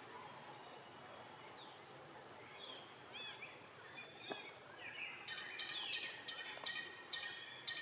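Birds chirping over steady outdoor background noise: a few short arching chirps about three seconds in, then a quick run of repeated high notes from about five seconds in.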